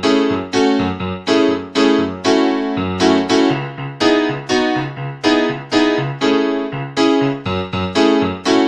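Casio CTK-4200 keyboard played in a piano-family voice: rhythmic chords struck about twice a second over a moving bass line, each chord decaying after its attack.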